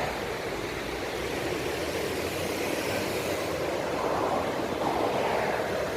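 Sea waves breaking and washing ashore: a steady rush of surf that swells again in the last couple of seconds.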